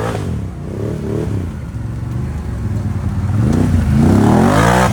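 ATV engine revving up and down several times, with the longest and loudest climb in pitch in the final second.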